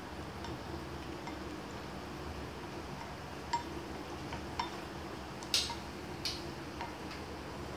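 A few light, sharp clinks and taps of utensils against a ceramic bowl, spaced irregularly and loudest a little past halfway, over a steady low hum.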